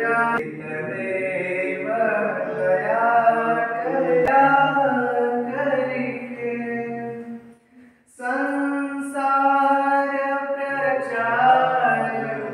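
Men's and women's voices singing a devotional Hindu bhajan together, breaking off briefly about eight seconds in and then starting the next line.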